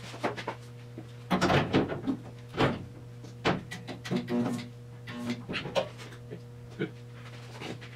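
Irregular metallic clicks and knocks of locking-plier clamps and hand tools against the car's floor sheet metal, over a steady electrical hum.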